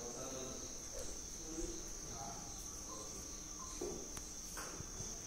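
Insects, likely crickets, chirring in one steady, unbroken high-pitched drone, with faint voices in the distance.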